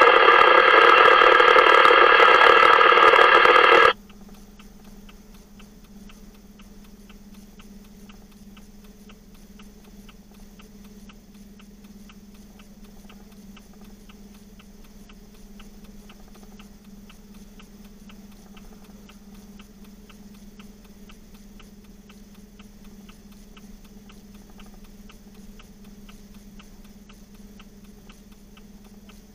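A loud, steady electronic tone with several fixed pitches sounds until about four seconds in and cuts off suddenly. After it there is a steady low hum with faint, evenly spaced ticking.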